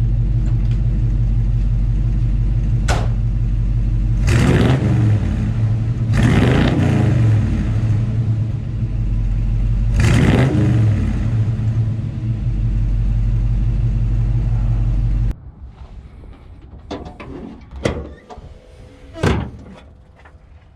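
GM crate 350 small-block V8 running loudly, its engine speed sweeping up and back down three times. About fifteen seconds in the sound cuts off suddenly to a much quieter background with a few short knocks.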